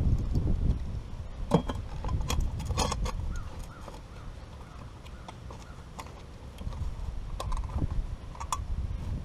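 A steel circular saw blade being handled and clamped to a wooden rail: scattered metallic clicks and clinks as the blade and clamp are set and tightened, over a low rumble of wind on the microphone.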